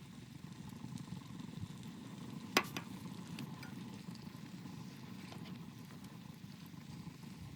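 Wood stove fire crackling: scattered small snaps and one sharp pop a little over two and a half seconds in, over a low steady rumble.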